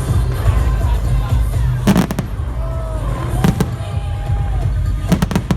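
Fireworks bursting over loud show music with a heavy bass. There is a sharp bang about two seconds in, another about a second and a half later, and a quick cluster of bangs near the end.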